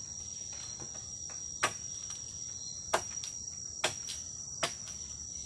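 Four sharp knocks of a tool striking a bamboo pole, spaced roughly a second apart, over a steady high-pitched insect drone.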